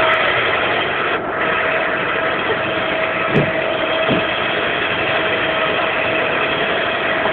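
Steady engine-like mechanical noise with a constant hum, broken by two short dull thumps about three and four seconds in.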